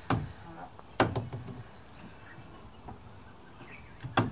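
Sharp knocks of a gas bottle storage box bumping against the edges of the cut-out in a van's sheet-metal side wall as it is pushed into place: one knock at the start, a quick cluster about a second in, and another near the end.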